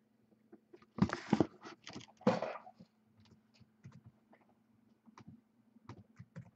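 Computer keyboard and mouse clicking as a list of names is copied into a web form, with two louder rustling scrapes about one and two seconds in and scattered light clicks after.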